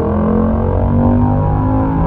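Yamaha MT-07's 689 cc parallel-twin engine running through a Mivv exhaust with the dB killer removed. It holds fairly steady revs under way, its pitch shifting slightly in small steps.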